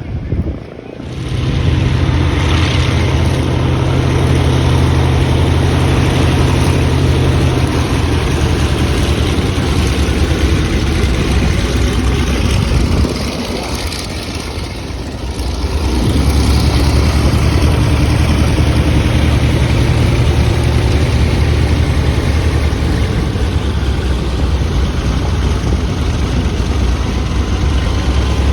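Propeller aircraft engine running loudly at a steady speed, easing off for a few seconds a little before halfway and then coming back up to the same steady pitch.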